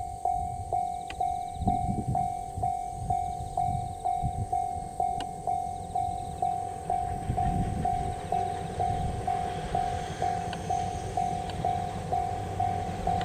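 Japanese level-crossing warning bell ringing steadily at about two strikes a second. About halfway through, the rumble of the approaching C57 180 steam train grows underneath it.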